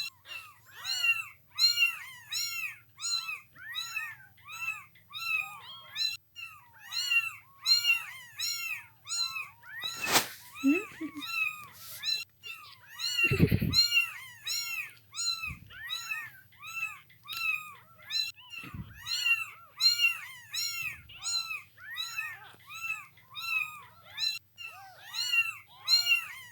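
Several kittens meowing over and over: high, rising-and-falling calls that overlap almost without pause. A sharp click comes about ten seconds in and a dull thump a few seconds after it.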